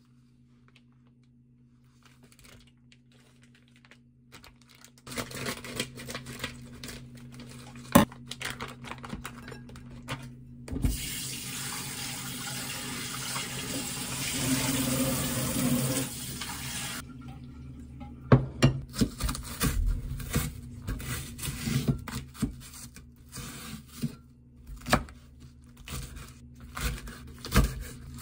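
A kitchen tap runs for about six seconds as meat is rinsed under it. Then a knife chops thick green onion on a wooden cutting board in a string of irregular sharp knocks.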